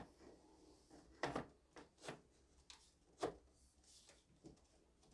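Foam RC model jet's main wing being fitted into the fuselage: a few soft knocks and rubs of foam and plastic parts, the loudest about a second in.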